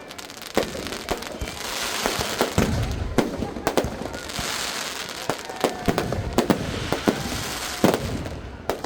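Fireworks and firecrackers going off: a string of sharp bangs, about one a second, over swelling bursts of crackling hiss, with a deeper boom about two and a half seconds in.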